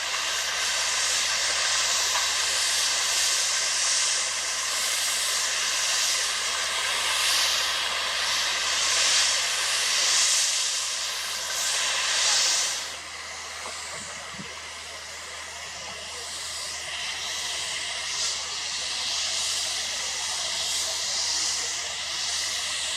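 Road-paving machinery running with a loud, steady hiss and a faint whine over a low hum; the hiss swells and eases every second or two and turns quieter a little past halfway.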